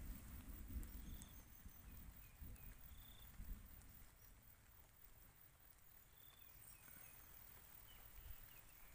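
Near silence in an open field: a low rumble on the microphone that fades over the first two seconds, then a few faint, short high chirps scattered through the rest.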